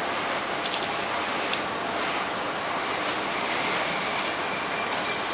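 Steady rushing background noise with a faint, constant high-pitched whine; no distinct event stands out.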